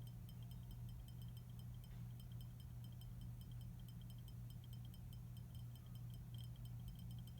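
Light bulb buzzing: a steady low electrical hum, with faint, rapid, irregular high-pitched ticking over it.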